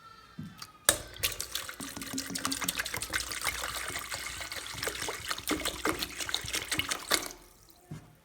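Water poured from a cup in a steady splashing stream. It starts suddenly about a second in and fades out about seven seconds in.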